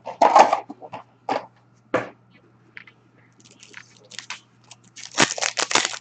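Trading card pack wrappers and cards being handled: a few sharp crinkling rustles, then a quick run of crackling near the end.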